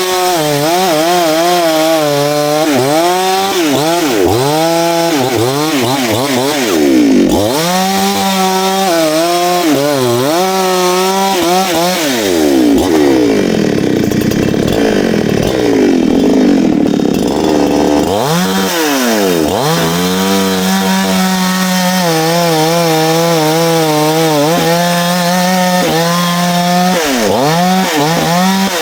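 Two-stroke chainsaw cutting wood, its engine note dipping and climbing again and again as the chain bites in and frees up. For several seconds around the middle it runs lower and unsteady, pulled down under heavier load.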